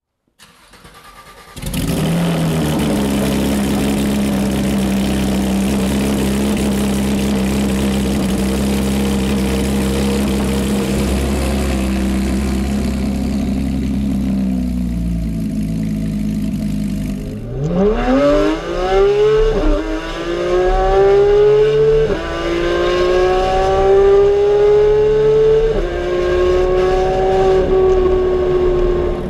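2014 Porsche 991 GT3's 3.8-litre flat-six through an iPE Innotech race exhaust, very loud. It starts about a second and a half in and holds a fast, steady cold-start idle that settles slightly lower near the middle. After a cut, heard from inside the cabin, it accelerates hard: the revs climb and fall back at each of three upshifts.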